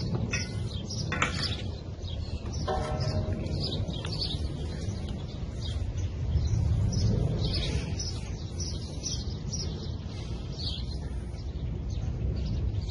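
Small birds chirping over and over, with a steady low rumble of wind on the microphone. About a second in there is a sharp click, and a few seconds in a short metallic scrape, as the engine's crankcase cover is worked loose.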